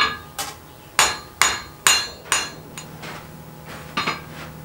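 Hand hammer striking a red-hot iron bar on an anvil while forging a fire poker: a run of about five ringing blows roughly half a second apart, then a pause and a couple of lighter blows near the end.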